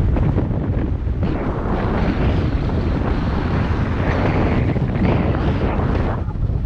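Wind buffeting the microphone of a skier's action camera at speed, a loud steady rumble, with the hiss of skis sliding over packed snow rising and falling.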